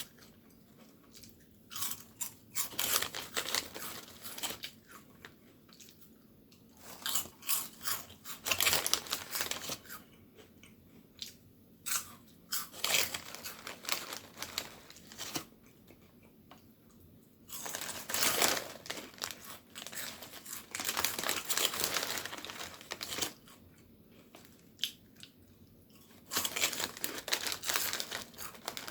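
Someone chewing crunchy food close to the microphone, crunching in irregular bursts with short pauses between them.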